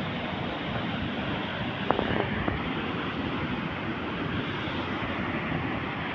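Steady rushing noise, even and unbroken, with a few short sharp clicks about two seconds in.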